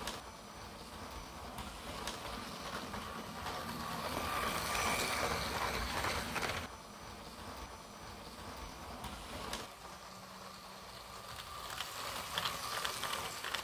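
Motorized LEGO City 60197 passenger train running on plastic LEGO track: a steady rattle of wheels and a thin electric-motor whine. It grows louder twice as the train passes close by, about four seconds in and again near the end, with clicking from the wheels in the second pass.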